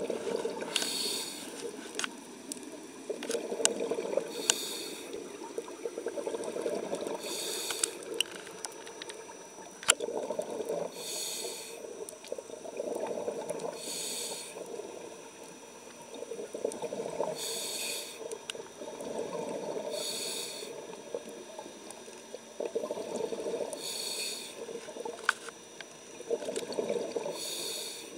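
Scuba diver breathing through a regulator underwater, in a regular cycle about every three and a half seconds: a short hiss on each inhale and a longer burble of exhaled bubbles. A few sharp clicks are scattered through it.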